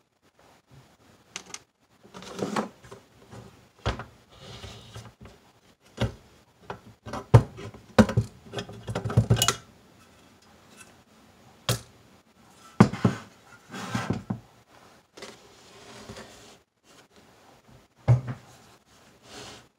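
Super Technicolor 580 film projector being handled during disassembly: its plastic housing and metal base are tipped over, pulled apart and set down on a wooden table, giving irregular knocks, clicks and scrapes with short quiet gaps.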